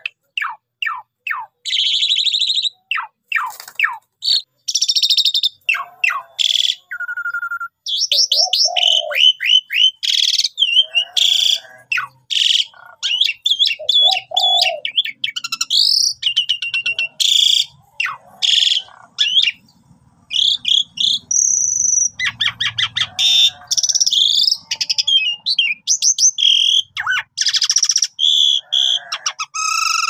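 Asian pied starling (jalak suren) in full song: a long, varied stream of loud whistles, rapid rattling trills and chattering phrases, broken only by short pauses.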